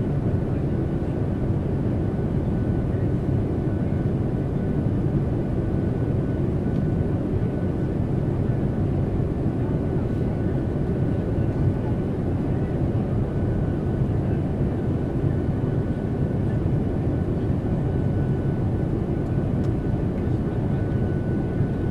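Airplane cabin noise: a steady, unchanging rumble of engines and airflow, with a faint constant whine high above it.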